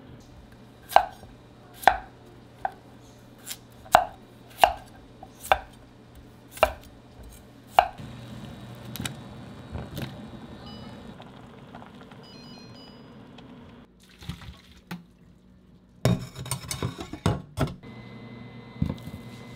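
Kitchen prep: sharp knocks about once a second for several seconds, like a knife chopping on a cutting board, then a steady hum with a few faint short beeps, then a quick run of clattering utensils and dishes near the end.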